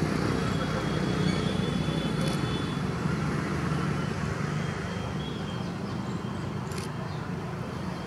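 Steady low rumble of distant road traffic, with a few faint high chirps over it and two faint clicks, about two seconds in and near the end.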